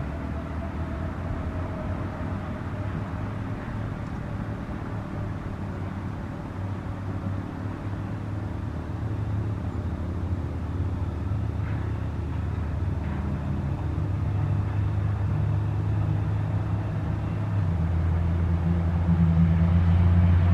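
Federal Signal RSH-10 Thunderbeam siren winding down at the end of its alert, its faint tone slowly falling in pitch and fading over the first several seconds. A low rumble grows steadily louder underneath and is loudest near the end.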